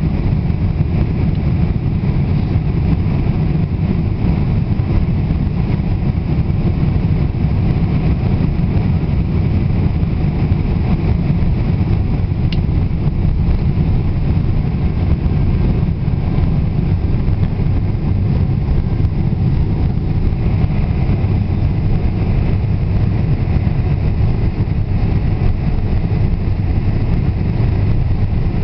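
Steady cabin noise inside a Boeing 747 airliner in flight on approach, a constant low drone of engines and airflow with no change in level.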